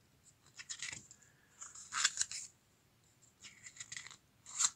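Pages of a small paper booklet being turned by hand: four short rustles about a second apart.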